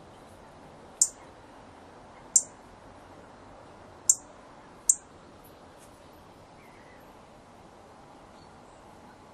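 European robin giving four sharp, high-pitched ticking calls in the first five seconds, irregularly spaced, over a faint steady background hiss.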